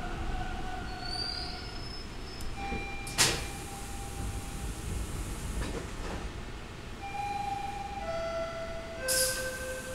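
Inside a Bombardier T-1 subway car: a steady low rumble of the train, with a sharp clunk about three seconds in. Short steady tones sound through it, ending in three tones that step down in pitch, with a brief hiss about nine seconds in.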